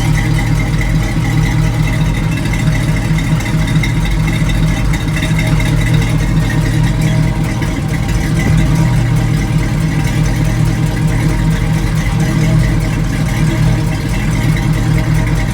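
1980 Chevrolet Silverado pickup's engine idling steadily.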